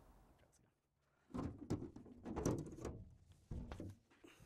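Front cover panel of an Enphase IQ Battery 10T being handled and lifted off its housing: a series of clunks and scraping rubs, starting about a second in.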